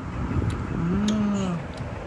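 A voice humming one long 'mmm', about a second long, rising slightly and then falling: an appreciative 'yum' over tasty food.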